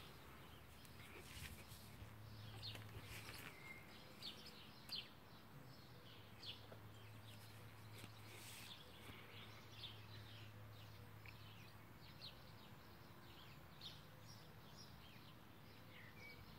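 Faint birdsong: many short, scattered chirps and calls from small birds, over a low steady hum that comes in about two seconds in and fades out about twelve seconds in.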